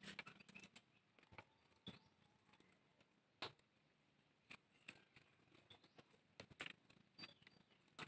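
Near silence with faint, scattered clicks and rustles, about a dozen, the loudest about three and a half seconds in: newly hatched chicks stirring in a nest of dry pine needles.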